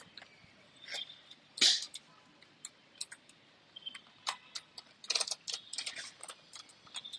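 Laptop keyboard keys clicking and rattling irregularly as the keyboard is wiped and brushed clean, with a few short scraping swishes; the loudest comes about one and a half seconds in.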